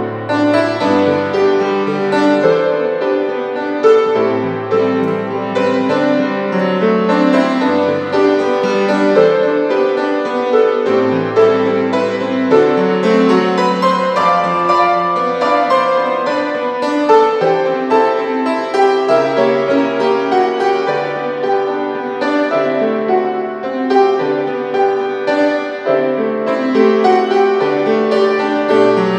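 Grand piano played solo: a hymn arrangement in full chords over a moving bass line, without singing.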